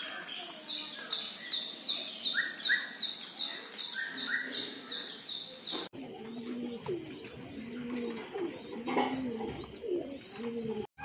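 High chirping repeats about two or three times a second until a sudden cut about six seconds in. Then domestic pigeons coo in a cage: low, repeated coos.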